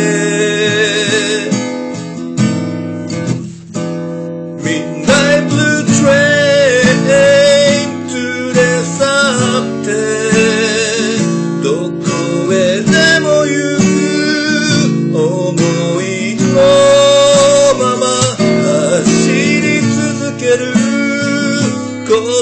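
Acoustic guitar strummed in a steady rhythm, with a wavering lead melody over it. The playing dips briefly about three seconds in.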